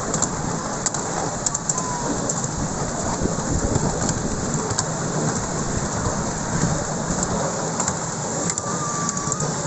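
Miniature railway train running along the track: a steady rumble and rattle of the carriage wheels on the rails, with occasional sharp clicks.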